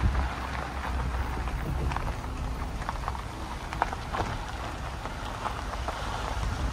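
Suzuki Jimny rolling along a gravel track, its tyres crackling over loose stones, with a steady low rumble of engine and road underneath, heard from inside the cabin.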